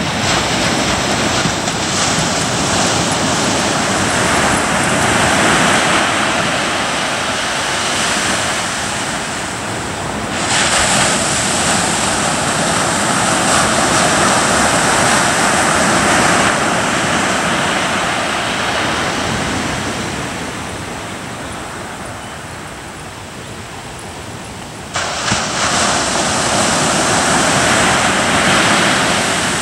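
Ocean surf breaking and washing on a beach, a steady rushing that swells and ebbs. It jumps up abruptly about a third of the way in and again near the end.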